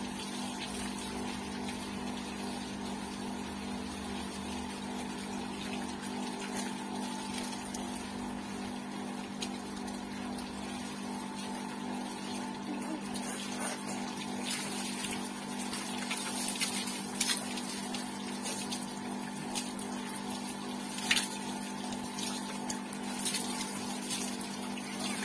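Steady hum of a water pump with hose water running and splashing onto a motorcycle as it is washed. Sharper splashes and knocks come in the second half.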